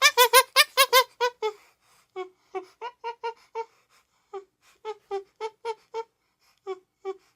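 Chimpanzee-like creature vocal sound effect: a fast run of short, high, squeaky hoots, loudest in the first second or so, then softer evenly spaced hoots about three a second that stop shortly before the end.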